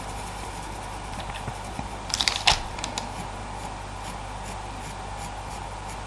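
Pastel pencil scratching on Pastelmat paper in short strokes over a steady low room hum, with a louder cluster of scratchy strokes about two seconds in.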